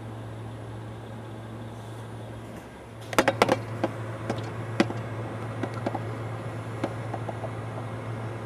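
Recyclables clattering into a rear-loader garbage truck's hopper as a cart is emptied by hand: a burst of sharp clanks and clinks about three seconds in, then scattered clinks, over a steady low hum.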